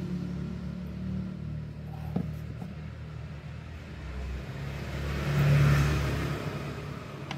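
A low rumble that rises and falls, swelling to its loudest about five and a half seconds in, with one short click about two seconds in.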